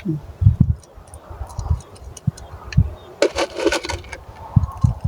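Small white gravel stones clicking and rattling as they are dropped and settled by hand, with scattered dull knocks and a brief denser rattle about three seconds in.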